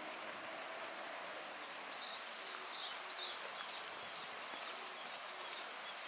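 A songbird singing a run of short, high, arched notes repeated about two and a half times a second, starting about two seconds in, over a steady outdoor hiss of background noise.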